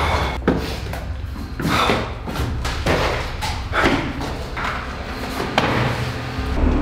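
Footsteps on concrete stairs, a heavy step roughly every second, over a low steady hum.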